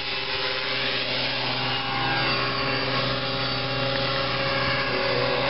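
Electric motor and propeller of a homemade foam-board RC model airplane giving a steady whine, with several pitches held at once and slight shifts in pitch as the throttle changes.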